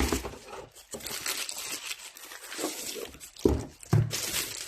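Packaging crinkling and rustling as smart lock parts are handled and unwrapped, with two dull knocks near the end.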